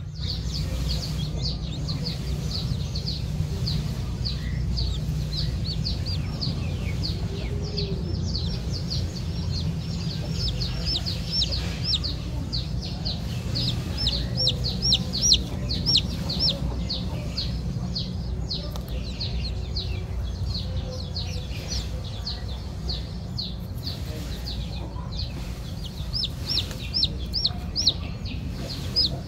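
Chicks peeping: a steady stream of short, high, falling peeps, several a second, louder around the middle and again near the end. These are the insistent peeps of chicks left without their mother hen. A low, steady background rumble runs underneath.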